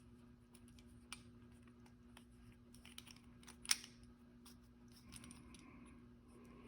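Faint scattered clicks and ticks from the broadhead and KME sharpening jig being handled on the glass plate, with one sharper click near the middle, over a steady low hum.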